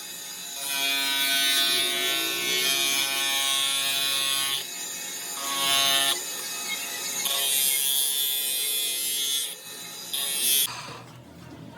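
Small handheld electric power tool with a buzzing motor whine, working on a plastic car headlight. It stops and changes pitch several times and cuts out shortly before the end.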